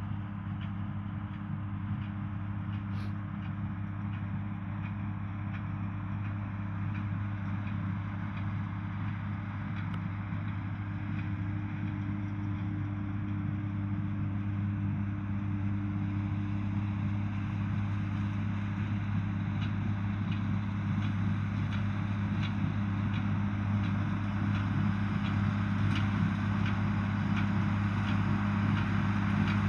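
John Deere 4040's six-cylinder diesel engine running at a steady pitch while working a small square baler, growing gradually louder as it draws nearer. In the second half there are faint, evenly spaced clicks.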